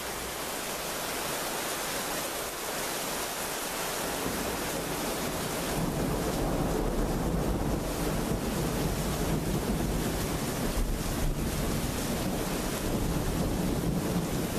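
Heavy thunderstorm rain falling steadily, with wind buffeting the microphone. About six seconds in, a low rumble comes in and grows louder.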